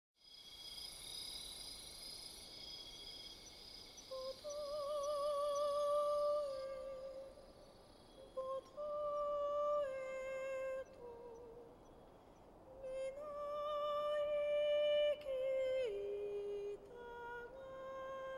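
Insects trilling steadily in the first few seconds. Then a high voice hums a slow wordless tune in long, held notes with vibrato, stepping up and down between pitches.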